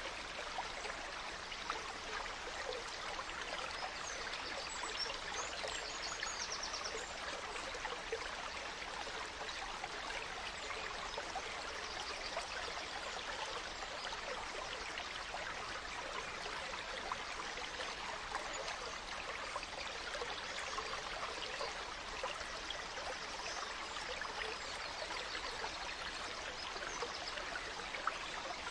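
A gentle stream flowing steadily, an even rush of running water. Faint forest birdsong chirps in now and then.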